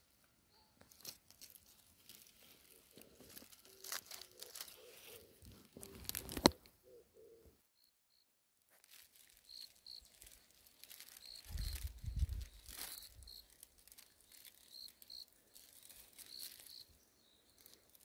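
Soil and dry leaf litter crackling and rustling as they are scraped and handled, with a sharp snap about six seconds in. After a short gap, a small bird gives repeated short, high chirps, with a low rumble of wind or handling on the microphone about midway through that part.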